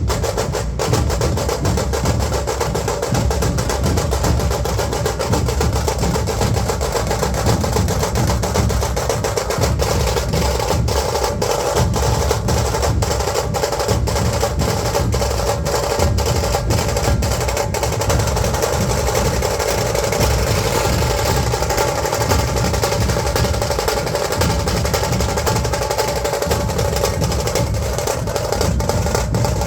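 Dhol drums played in a dense, continuous rhythm, with no break.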